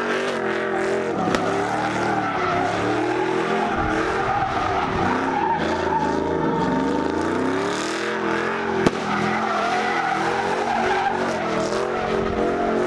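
Pickup truck doing donuts: its engine revs hard, the pitch rising and falling, over a continuous squeal of spinning tires. A sharp crack cuts through about nine seconds in.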